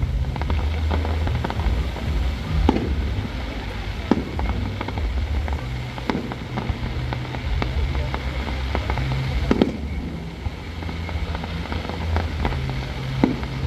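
Aerial fireworks display: shells bursting with sharp bangs every second or two, with crackling between them over a steady low rumble.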